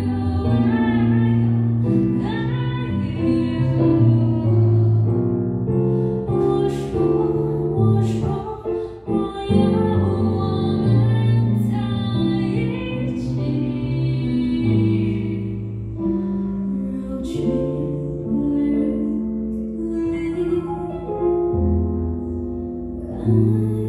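A woman singing live, accompanied on a Nord Electro 6D stage keyboard, with held notes and a slow melody that carries on without a break.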